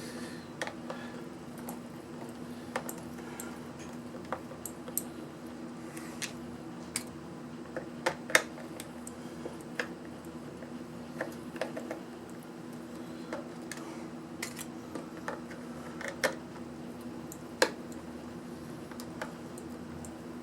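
Scattered small clicks and taps of tools and small plastic and metal parts being handled during the disassembly of a portable power pack, over a steady low hum. The clicks come irregularly, a few louder ones among them.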